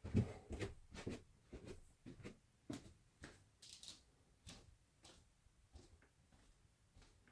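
Faint, irregular clicks and soft knocks, about a dozen over several seconds, the loudest a thump just after the start and the later ones fainter.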